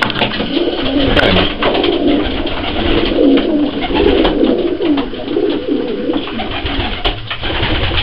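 A flock of racing pigeons cooing together, many low warbling coos overlapping without a break, with a few sharp clicks mixed in.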